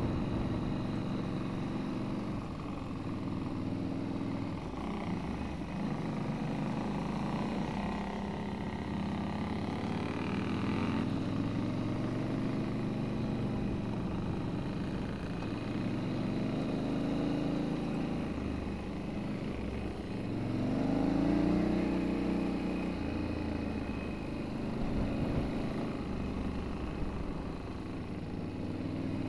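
Motorcycle engine running while riding a gravel trail, its pitch repeatedly rising and falling with throttle and gear changes, the strongest rev coming about two-thirds of the way through.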